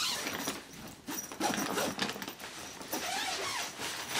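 Tent fabric rustling and crinkling as someone moves about inside a small tent, with a few soft knocks.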